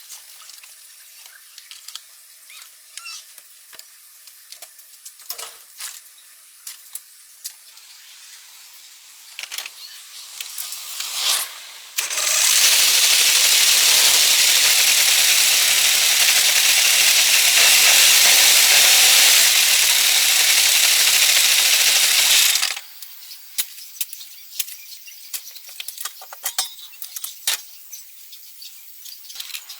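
Small scattered clicks and clinks, then a loud, steady hiss that starts abruptly about twelve seconds in, runs for about ten seconds and cuts off suddenly, followed by more small clicks.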